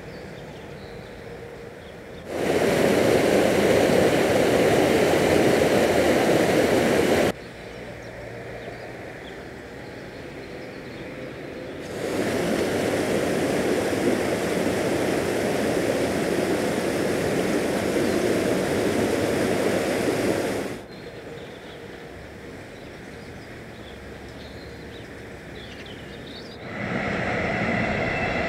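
Canal water rushing through the gap left by a partly removed temporary dam: a steady, loud rushing noise in two long stretches that cut in and out abruptly, with quieter background between. Near the end a train begins passing, with a high squeal of wheels.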